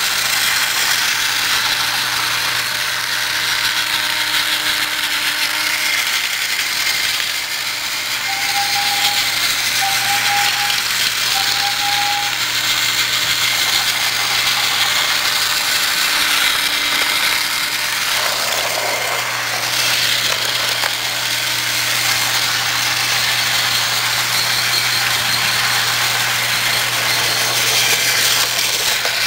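Battery-powered TrackMaster toy trains running on plastic track: the small electric motors and gearboxes whir and rattle steadily. Three short high tones sound close together about a third of the way in.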